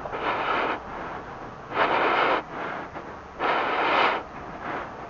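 A person breathing close to the microphone: hissy breaths coming evenly, about one every second and a half to two seconds.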